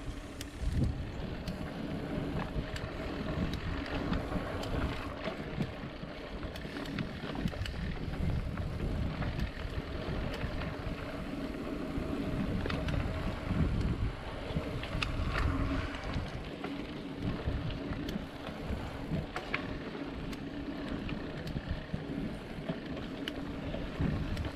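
Mountain bike rolling along a dirt trail: wind buffeting the microphone over a steady low rumble of tyres on the ground, with scattered sharp clicks and knocks.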